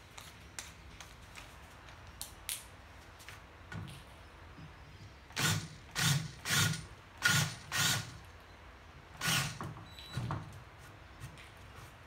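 Cordless drill run in about six short bursts into a timber frame, countersinking pilot holes for screws, between about five and ten seconds in. A few light clicks of handling come before.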